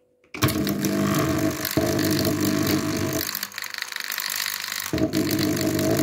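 Bosch washing-machine drain pump motor switched on, starting suddenly about half a second in and running noisily. Its sound thins out for a second or so in the middle, then returns. The impeller is broken loose on its coupling and wobbles, sliding out and back in, so the pump spins but does not pump water.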